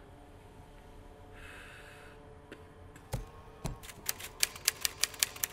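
Manual typewriter keys clacking in a quick, regular run that starts about four seconds in. Before it come a soft breath-like hiss and two dull knocks.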